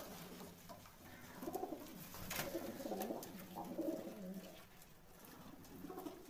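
Domestic high-flying pigeons cooing, several low, rolling coos one after another, with a single sharp click a little over two seconds in.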